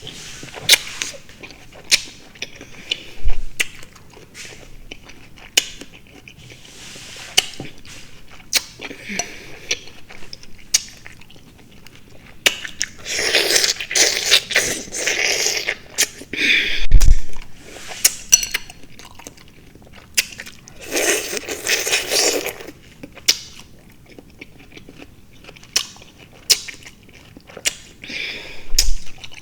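Close-up chewing of fresh fruit (honeydew, cantaloupe and grapes): wet mouth clicks and smacks throughout, with two louder, juicier stretches of chewing partway through.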